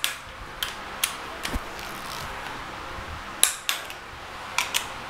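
Torque wrench and socket working the ARP head-stud nuts of a Toyota 4A-GE engine as the cylinder head is torqued down in stages: a string of sharp metallic clicks and clinks at irregular intervals, the loudest about three and a half seconds in.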